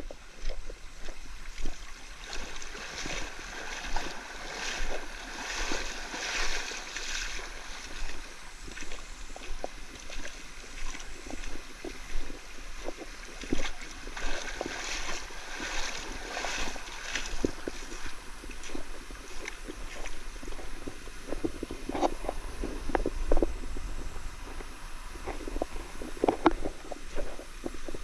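Stream water rushing and splashing, with wind buffeting the microphone and scattered knocks and clatter, which grow sharper and more frequent in the last several seconds.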